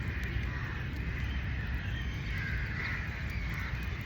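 Steady rain falling in an open garden, with birds calling in the background.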